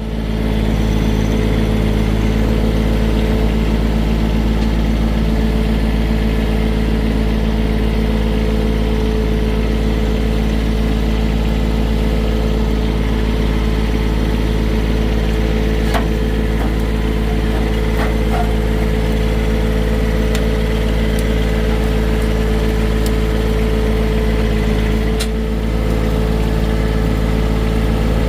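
John Deere 1023E compact tractor's three-cylinder diesel running steadily close by, with a steady whine over the engine hum and a few light clicks.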